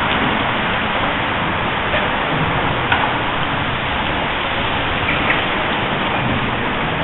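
Steady, loud rushing noise with no pitch to it, and two faint clicks, about three seconds in and again about five seconds in.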